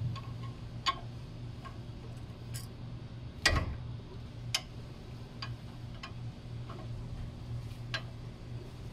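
Irregular metallic clicks and clinks of a combination wrench working the front brake caliper bolts of a Mercedes W212 E-Class, a few seconds apart, the loudest knock about three and a half seconds in, over a steady low hum.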